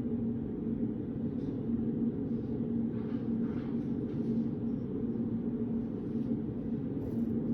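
Steady low hum of a study room's background noise, with faint soft sounds about three seconds in.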